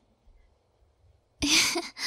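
A woman's voice: near silence, then about a second and a half in, a short breathy vocal exhale, a voiced breath rather than a word.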